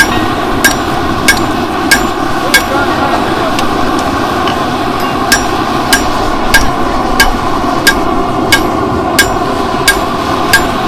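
Hand hammer striking a blade of hot scrap steel on an anvil, one ringing blow about every two-thirds of a second. The blows pause for a couple of seconds midway, then resume. A steady background noise runs underneath.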